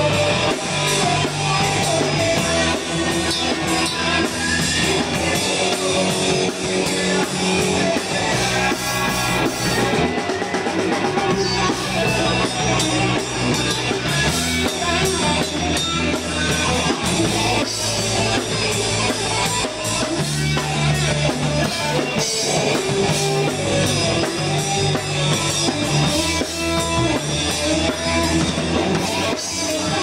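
A rock band playing: electric guitar over a drum kit.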